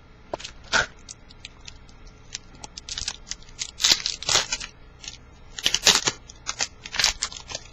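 Foil trading-card pack wrapper crinkling and tearing open, and cards being handled: an irregular string of sharp crackles and snaps, loudest around four and six seconds in.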